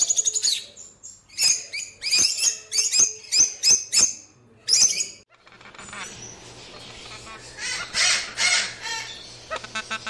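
Parrots calling: a run of shrill, rapid chirps in quick bursts for about five seconds. After a short break comes softer chattering over a steady background, louder again about eight to nine seconds in.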